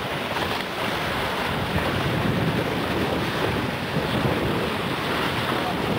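Steady wind buffeting the microphone over the rush of choppy sea and the white water thrown up by a sailing yacht's bow.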